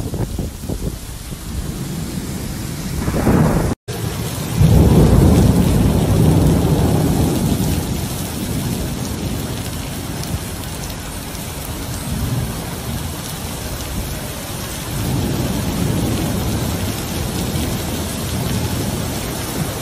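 Heavy rain pouring down in a thunderstorm, with a long deep rumble of thunder swelling up about four and a half seconds in and easing off by about eight seconds, and a smaller rumble later. The sound cuts out completely for a moment just before the first rumble.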